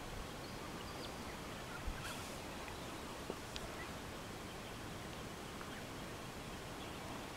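Faint, steady outdoor background noise with a few soft, short ticks and a low bump about two seconds in.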